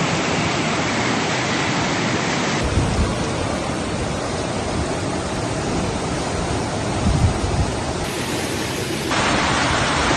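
Floodwater rushing in a steady loud torrent, with no distinct events; its character changes abruptly about two and a half seconds in and again near the end.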